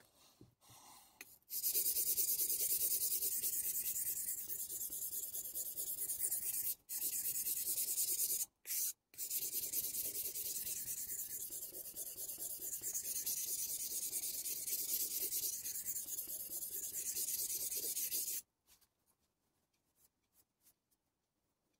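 Steel deba knife blade rubbed back and forth on a Shapton Glass 320-grit whetstone, a continuous gritty scraping. It starts about two seconds in, breaks off briefly twice around the middle, and stops a few seconds before the end.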